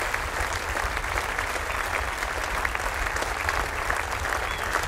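Audience applauding, a dense, steady patter of many hands clapping, over a low hum.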